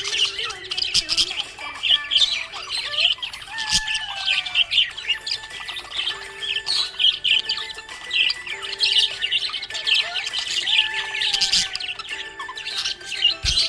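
Budgerigars chirping and warbling in a continuous, busy chatter of rapid high chirps with occasional squawks.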